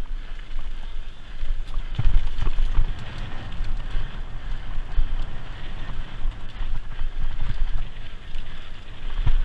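Wind rumbling on the microphone of a bicycle-mounted camera, with the hiss and crunch of tyres on a stony dirt trail and irregular knocks and rattles as the bike jolts over bumps.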